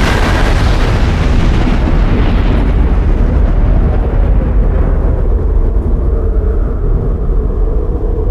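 Sci-fi spaceship sound effect: a loud blast-like roar whose hiss dies away over several seconds into a steady deep rumble, with a low steady hum coming in about halfway.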